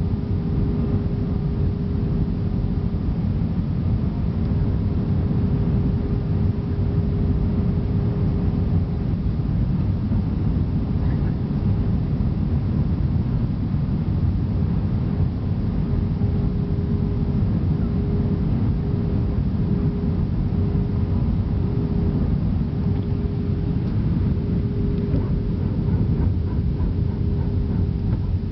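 Steady cabin noise inside a jet airliner descending on approach: a constant rumble of engines and airflow with a steady hum running through it.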